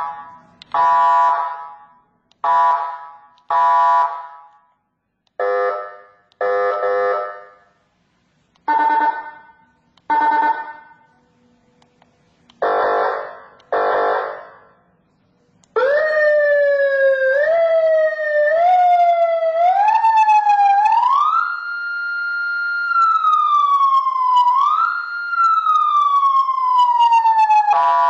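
Federal Signal 200-watt electronic siren giving about ten short horn-tone blasts. About halfway through it switches to a continuous siren wail that climbs in steps, holds, and then sweeps slowly up and down.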